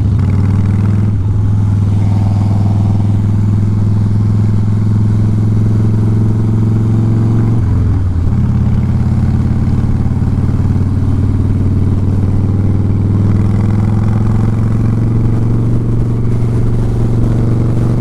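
Harley-Davidson Softail Fat Boy's V-twin engine running steadily while riding. About eight seconds in, the engine note briefly drops in pitch and then comes back up, as with a shift or a moment off the throttle.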